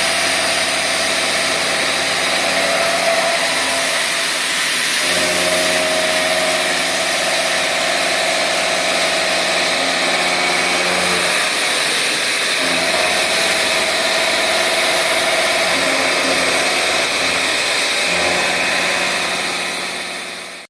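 CNC milling machine cutting a cast mould: a steady spindle hum over a strong hiss, the hum shifting in pitch several times as the tool moves through the cut. The sound fades out at the very end.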